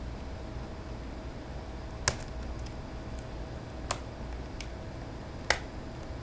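Back cover of a NextBook NX008HD8G tablet snapping onto the case: three sharp clicks about two, four and five and a half seconds in, with a fainter one between them, as the clips lock into place. A low steady hum lies under the clicks.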